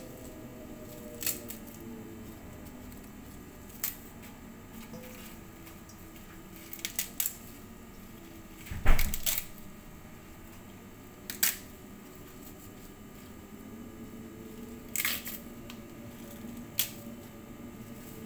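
Curly kale leaves being torn off their stems by hand, a crisp rip or snap every few seconds. The loudest, with a dull knock in it, comes about halfway through.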